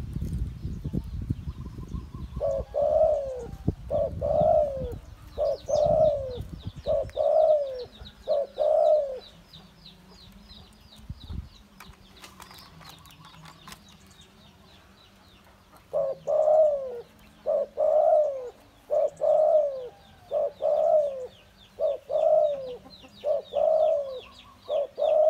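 A caged spotted dove cooing: a run of evenly spaced coos, a bit more than one a second, then a pause of several seconds and a second run that carries on to the end. A low rumble lies under the first few seconds.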